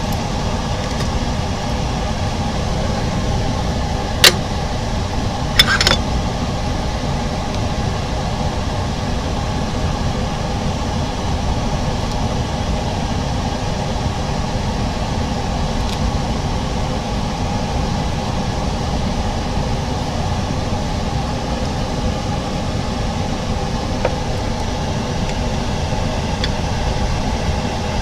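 Steady mechanical hum and hiss from workshop machinery, with a sharp click about four seconds in and a second, slightly longer click just before six seconds.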